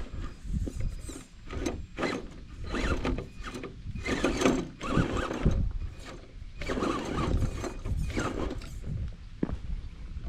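Radio-controlled crawler truck driving in short bursts: its electric motor and gears whine, rising and falling in pitch as the throttle is worked, over a low rumble.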